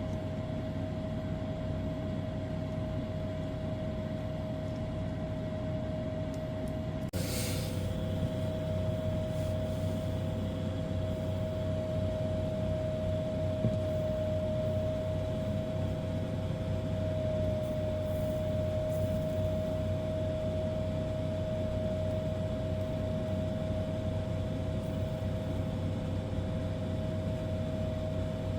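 Steady machine hum holding one constant tone over a low rumble, with a single brief click about seven seconds in.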